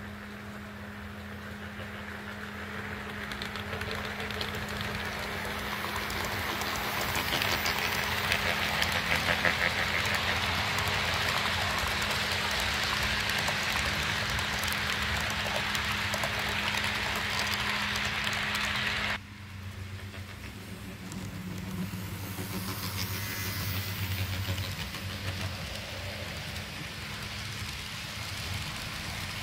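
Model train of Burlington Northern locomotives pulling freight cars, its wheels rolling on the track over a steady motor hum, growing louder as it approaches. About two-thirds of the way through the sound drops off abruptly and carries on quieter and lower as the cars roll into a tunnel.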